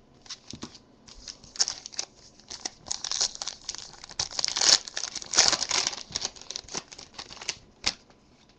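Foil wrapper of a trading-card pack being torn open and crinkled by hand: a run of irregular crackles and rips, loudest in the middle.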